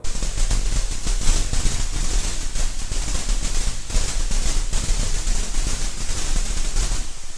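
A loud rush of static-like noise with a deep rumble under it, starting suddenly and running on evenly: an added sound effect rather than speech or clear music.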